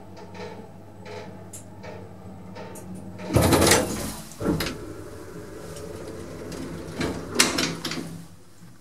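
Modernised passenger lift running with a steady mechanical hum, broken by two loud noisy bursts each under a second long, about three and a half and seven seconds in.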